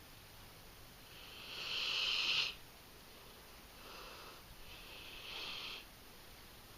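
English Mastiff breathing noisily through her nose as she sleeps: one loud hissing breath that swells and stops abruptly, then two fainter ones, without the deep rumble of a full snore.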